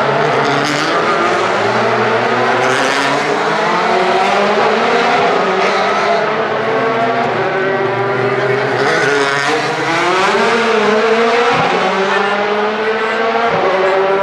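Several DTM touring cars' 4.0-litre V8 engines running together, their notes overlapping, with the revs rising and falling as the cars move off.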